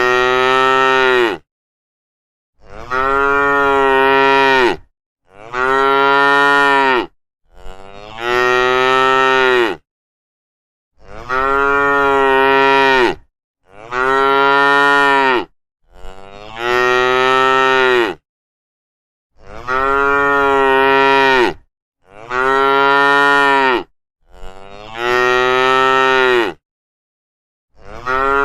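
Cattle mooing, one long call after another about every two and a half seconds, each moo swelling up in pitch at the start and then held before breaking off.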